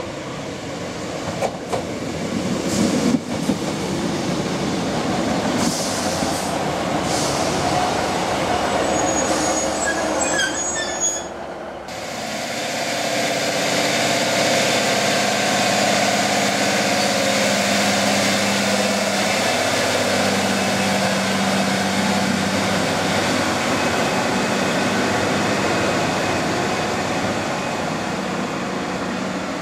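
London Midland Class 153 diesel railcar running into the station, wheels clicking and brakes squealing high as it slows. About halfway in the sound changes to a diesel unit standing at the platform, its underfloor engine running with a steady low hum.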